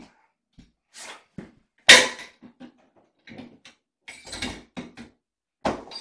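Irregular knocks and rattles from a plastic pet carrier being handled at its wire door, the loudest about two seconds in.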